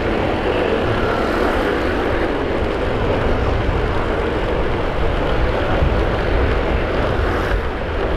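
Motorcycle riding along a road: a steady rush of wind on the microphone over the low drone of the engine.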